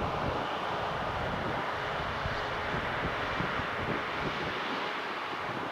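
Airbus A350-900's Rolls-Royce Trent XWB turbofans running at low power as the airliner rolls along the runway: a steady jet rush with a faint whine.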